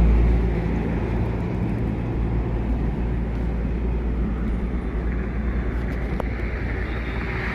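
Steady road-traffic noise: a vehicle running on the road, a low rumble with a hiss over it.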